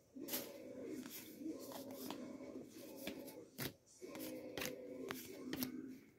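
Pokémon trading cards being slid one by one from the front of a hand-held stack to the back: a faint scraping rustle of card against card, with small sharp snaps as each card clears the stack and a short pause about four seconds in.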